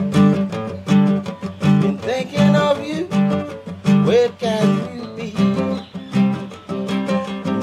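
Nylon-string classical guitar strummed in a steady rhythm, with a man's voice singing along for a few seconds in the middle.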